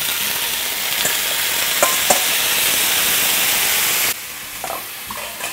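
Sliced onion, bell pepper and zucchini sizzling loudly in hot olive oil in a cast iron pan, with a couple of light clicks. The sizzle drops off abruptly about four seconds in.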